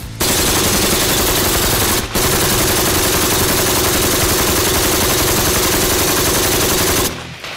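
RPK light machine gun (7.62×39 mm) firing full-automatic: a burst of about two seconds, a brief break, then a long burst of about five seconds that stops near the end. About sixty rounds in all, in a sustained-fire run past the 300-round mark.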